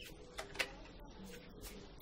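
Small straw-and-twig cooking fire crackling: a few sharp pops over a low steady background, the sharpest about half a second in.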